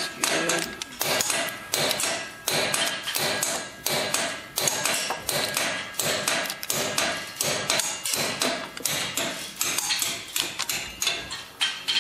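Ratchet head of a torque wrench clicking rapidly and repeatedly, several clicks a second, as the ring-gear bolts on a differential carrier are torqued down.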